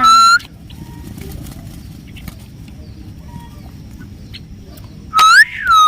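Loud whistled notes: a short one at the very start, then two more about five seconds in. Each note holds a steady pitch with a small rise or a rise and fall. They sound over a low background rumble.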